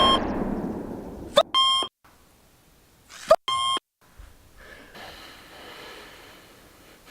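The reverberation of a Glock 22 pistol shot dies away, followed by two short electronic beeps about two seconds apart with dead silence between them. Faint room sound follows.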